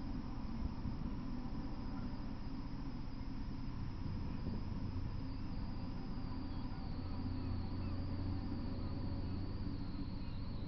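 Steady outdoor background noise: a low hum under a continuous thin high-pitched whine that drifts slowly lower in pitch.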